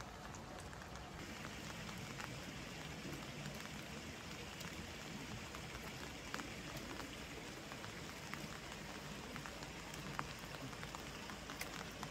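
Rain falling: a steady patter with scattered sharp drop ticks. It grows fuller about a second in and eases off at the very end.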